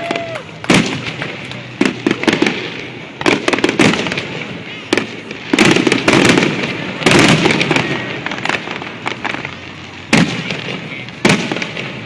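Fireworks display: aerial shells bursting with sharp bangs, about ten in irregular succession, with crackling in between.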